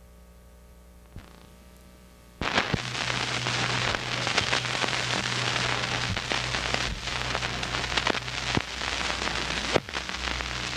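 A low steady hum with a faint click, then, about two and a half seconds in, a sudden dense crackling hiss full of sharp ticks that holds to the end.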